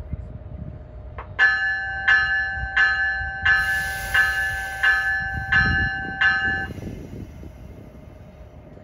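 A train's bell ringing eight evenly spaced strokes, about 0.7 s apart, then stopping, with a high hiss of air in the middle.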